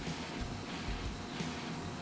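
Quiet background music, steady, with no speech over it.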